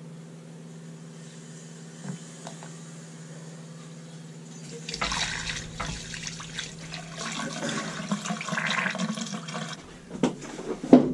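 Water and air sputtering out of a purge hose into a utility sink as a hot-water heating zone is bled of air, starting about halfway in and running irregularly for several seconds over a steady low hum. A few knocks near the end.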